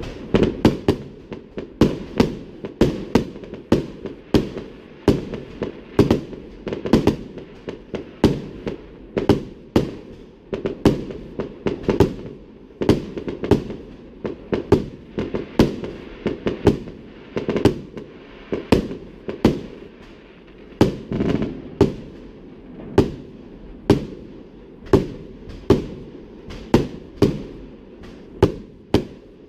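Fireworks display: a continuous barrage of sharp bangs, about one or two a second, with rumbling echo between them.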